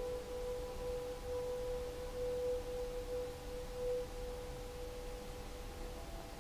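A faint steady pure tone with fainter tones above it, swelling slightly now and then and fading out near the end.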